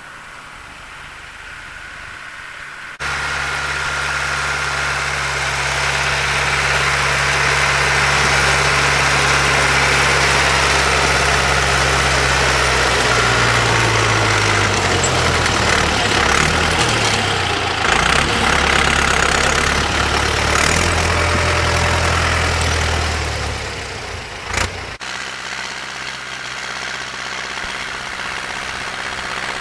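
Deutz 6207 tractor engine running while it pushes snow with a front plough, with a broad hiss over it. It is faint for the first few seconds, loud from about three seconds in with the engine speed rising and falling in the middle, and fainter again near the end.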